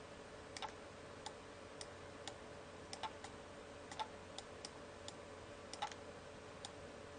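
Faint, irregularly spaced clicks at a computer, about a dozen in all, over a steady low electrical hum.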